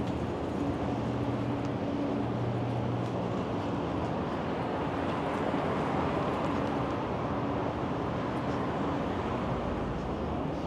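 Steady city street traffic noise, with a low engine hum from a nearby vehicle for the first three seconds or so that then fades into the traffic.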